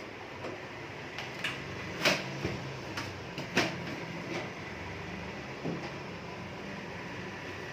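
Knocks and clicks from a computer cabinet being handled, about ten of them, irregular, with two louder knocks about two and three and a half seconds in, over a steady low hum.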